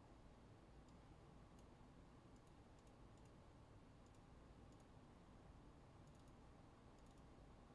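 Near silence with faint, scattered clicks of a computer mouse, about a dozen spread unevenly.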